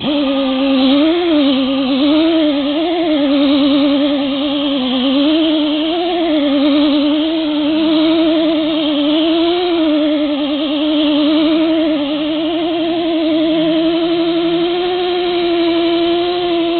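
Electric buffer running a wool buffing pad on an aluminium rim, a loud motor whine that starts suddenly and wavers up and down in pitch as the pad is pressed and eased. In the last few seconds it steadies and rises slightly.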